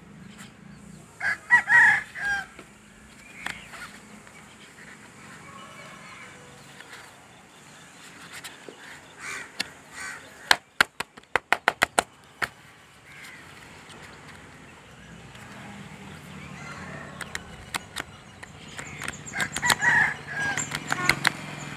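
Rooster crowing twice, about a second in and again near the end. In the middle comes a quick run of about eight sharp clicks, roughly six a second.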